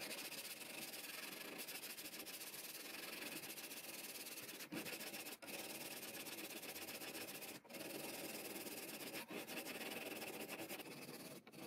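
A perforated diamond plate rubbed quickly back and forth along the flat of a steel knife blade clamped in a vise, a continuous rasping scrape as the blade's surface is hand-abraded during restoration. The stroking breaks off for an instant a few times, about halfway through and near the end.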